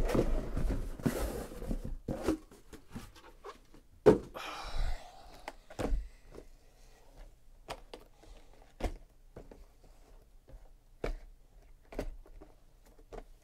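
Cardboard hobby boxes of trading cards being set down and arranged on a table: a series of dull knocks and thuds a second or two apart, loudest at the start, with a short spell of sliding and rustling about four seconds in.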